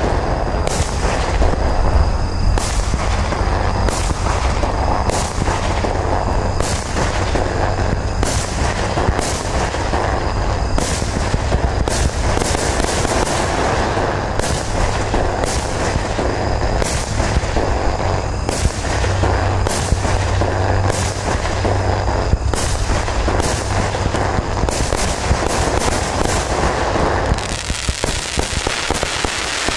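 Startrade Beatbox 2 16 mm consumer fireworks battery firing shot after shot in quick succession, a sharp report just over once a second over a continuous hiss of rising tails and bursts. About two seconds before the end the reports stop and an even hiss carries on.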